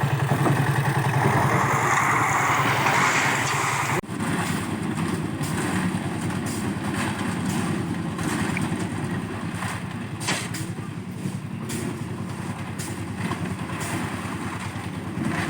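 A small engine running steadily, with scattered knocks and clatter over it; the sound changes abruptly about four seconds in.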